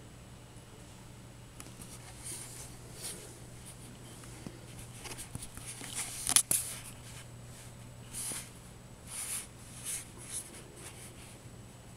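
Scattered soft scratchy rustles and brushes, with one sharp click about six seconds in, over a steady low hum.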